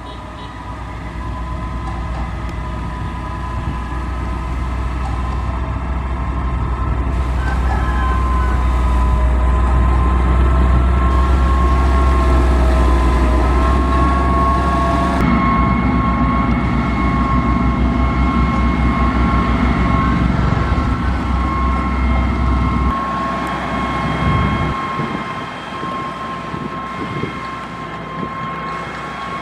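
Heavy construction machine running with a deep engine rumble and a steady high mechanical whine. It grows louder over the first several seconds and holds, then the low rumble falls away about three-quarters of the way through while the whine carries on.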